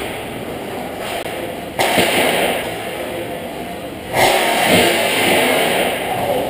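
Hockey skate blades scraping and carving on the ice during play, a rough hiss that jumps louder about two seconds in and again about four seconds in.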